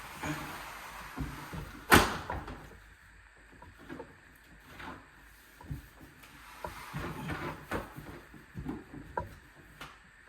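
Hands handling a window blind and its valance: scattered light knocks, clicks and rustling, with one sharp click about two seconds in.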